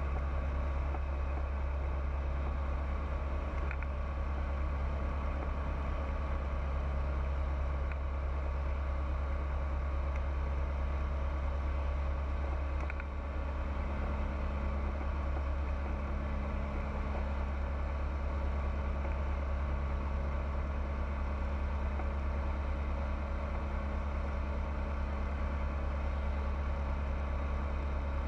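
Pipistrel Virus light aircraft's Rotax 912 four-cylinder engine and propeller running steadily, a constant low drone with steady tones, briefly dipping a little about halfway through.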